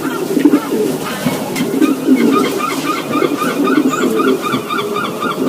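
Racing pigeons cooing, a dense overlapping stream of low, rolling calls. About two seconds in, a quick, regular, higher-pitched chirping joins it, about four notes a second.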